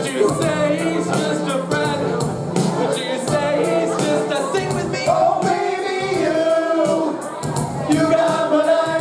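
A barbershop-style vocal quartet singing a hip-hop medley in close harmony over a backing track with a steady beat.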